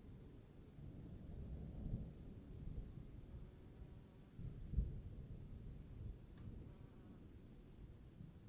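A faint, steady high insect chirring, like crickets, runs under a low rumble of distant thunder. The rumble swells and fades, rolling up about two seconds in and peaking a little before the middle.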